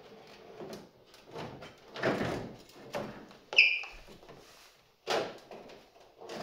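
Plastic front bumper cover of an EK Honda Civic being handled and pushed into place, with rubbing and knocking against the body. There is a sharp click with a brief ring about three and a half seconds in.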